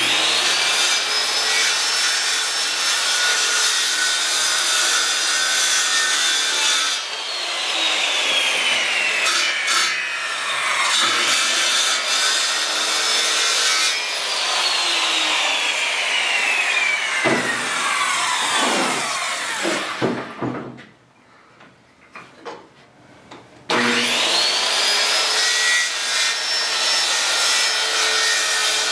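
Corded circular saw cutting through a sheet of wood. The blade winds down with a falling whine when the trigger is let go, runs again, then spins down fully. After a few quiet seconds it starts again with a rising whine and keeps cutting.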